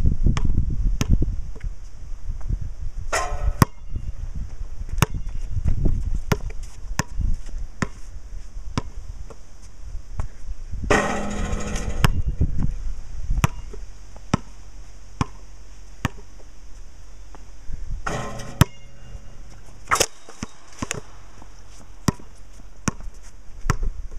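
A basketball being dribbled on outdoor concrete, one sharp bounce about every two-thirds of a second, with wind rumbling on the microphone. Three times a longer noise lasts up to about a second.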